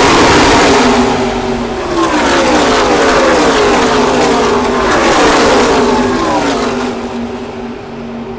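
A pack of NASCAR Truck Series race trucks' V8 engines passing at full speed, with many engine notes dropping in pitch one after another as each truck goes by. The sound eases briefly about a second and a half in, swells again as more trucks pass, and fades near the end as the pack moves off.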